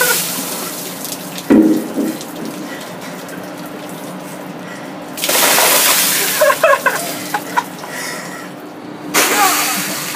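Ice water poured from buckets, gushing and splashing onto a seated person and the deck. It comes in surges, heaviest about five seconds in and again near the end, with a short loud sound about a second and a half in.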